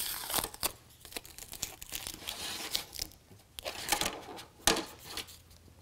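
Plastic tubing pulled out of the spiral channel in a retractable tonneau cover canister's clear plastic end cap, with its taped paper tag peeled loose: irregular crinkling and scraping with scattered clicks.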